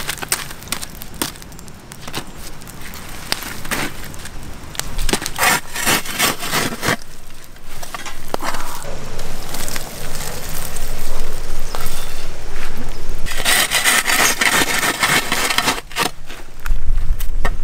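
Wood fire crackling with sharp pops while the burning embers are stirred and raked with a stick and a metal rod, with a louder, longer stretch of raking about three-quarters of the way through.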